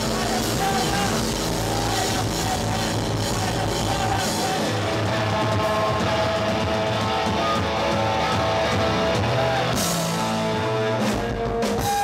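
Live punk rock band playing loud: electric guitars through Marshall amps, bass and drum kit, heard from within the crowd in a small club.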